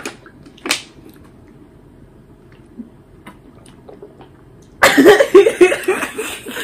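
A sudden burst of laughter about five seconds in, loud and choppy, mixed with the crackle of a thin plastic water bottle being handled. Before it there are a couple of short clicks.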